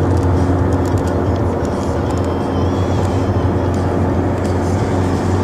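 A motor vehicle running steadily: a continuous low engine hum with road noise.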